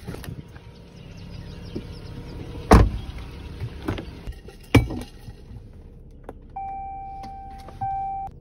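Car cabin noise, then two heavy thumps of car doors shutting, about three and five seconds in. Near the end the car's electronic chime sounds: one steady tone, broken once and starting again.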